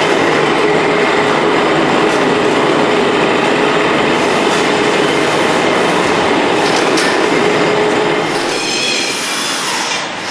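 Nut roaster's geared electric motor and chain drive running: a loud, steady mechanical noise with a held tone. About eight seconds in, the sound changes and drops slightly.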